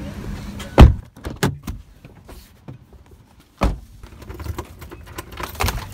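Car door pulled shut from inside with a heavy thump about a second in, followed by a few lighter clicks and knocks; a second door thump comes a little past halfway.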